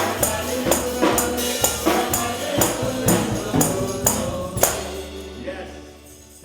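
Gospel worship music with a tambourine struck on the beat about twice a second, singing over it and a bass line; the music stops about five seconds in and rings away to quiet.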